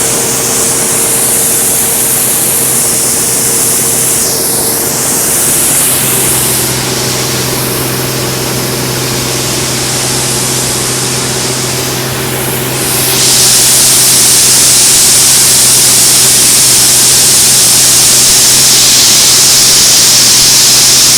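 Harvested soybeans pouring in a steady rushing hiss over a steadily running engine, as grain is unloaded. The rush of grain gets louder about 13 seconds in.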